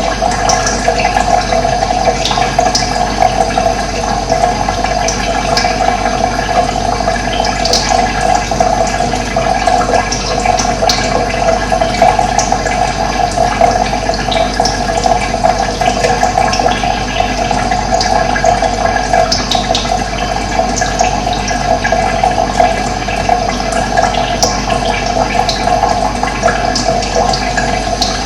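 Running water rushing steadily, with small high flecks of sound scattered through it.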